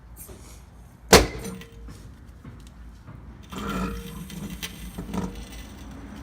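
A trolley jack lowering a car: one sharp, loud metal clank about a second in, then a run of lighter clattering and knocks.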